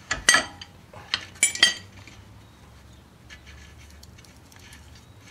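Several sharp metal clinks of a socket and wrench being handled at the castle nut of a rear wheel hub, all within the first two seconds.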